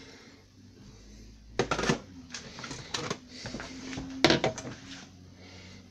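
Irregular knocks and clacks of a plastic blender jar and kitchenware being handled at a sink. There are clusters of clatter about two, three and four seconds in, the loudest near the end.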